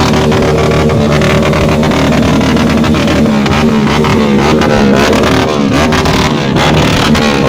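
Several motorcycle engines running and revving, their pitch rising and falling, more so in the second half.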